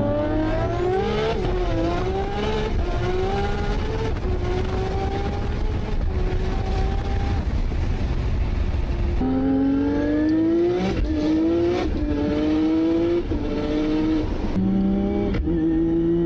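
Nissan R32 Skyline GTR's built 2.8-litre RB straight-six with a Precision 7675 turbo, accelerating hard through a PPG sequential dog-box gearbox, heard from inside the cabin. The engine pitch climbs and then drops sharply at each quick upshift, again and again. A second run of upshifts comes about nine seconds in, with the changes closer together, before the engine settles to a steadier note near the end.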